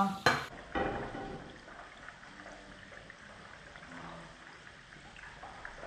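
A sharp knock or two near the start as a plastic ladle is set down on a plate, then a faint steady hiss of cooking from the stove, where a pot of spiced water is heating.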